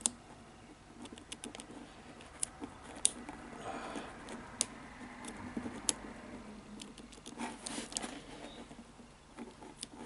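Number wheels of an Abus 3406C combination cable lock being turned by finger: scattered small sharp clicks over a faint rustle of fingers on the lock, as the wheels are worked one position at a time to feel for the combination.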